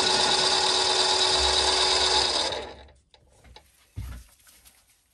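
Mini lathe running with a steel workpiece spinning in the chuck, a steady mechanical whine from motor and gears. About two and a half seconds in it is switched off and winds down within half a second. A low thump follows about four seconds in.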